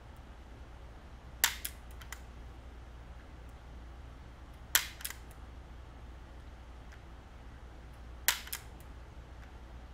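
Pistol dry-fired three times, a sharp snap of the hammer or striker each time followed by a fainter click of the trigger resetting, with a few seconds between shots.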